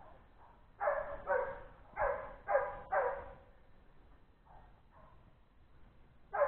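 Hunting dog barking on a wild boar trail: five loud barks in quick succession starting about a second in, a few fainter barks, then one more sharp bark at the end.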